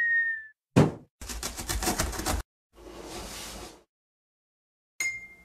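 Cartoon-style intro sound effects: a high whistle-like tone fades out, then a single heavy thump, about a second of fast rattling knocks, a softer hissing sweep, and a brief bright ding near the end.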